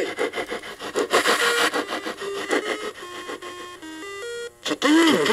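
An Atari/Amiga-style tracker MOD tune played from an ESP32 handheld's 32-bit DAC through a small speaker built into a Pot Noodle pot: a chiptune melody of stepping notes over a rhythmic beat. The playback has glitches, pops and clicks that the maker puts down to the player software clocking over its sample buffer. The sound drops out briefly near the end.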